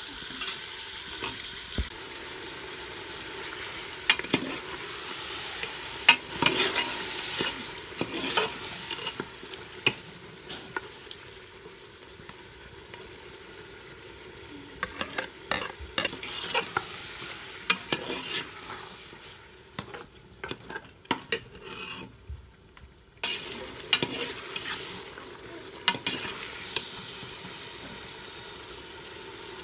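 Beef sizzling as it fries in oil in an aluminium pressure-cooker pot, with a steel ladle scraping and knocking against the pot in repeated spells of stirring.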